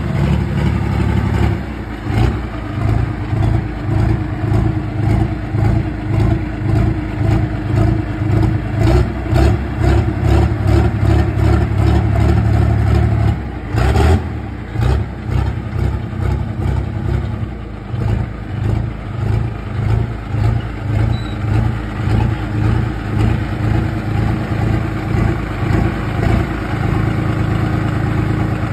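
AGCO DT200 light-limited super stock pulling tractor's diesel engine running at low speed, its sound rising and falling about twice a second, with a brief louder burst about halfway through and a steadier sound near the end.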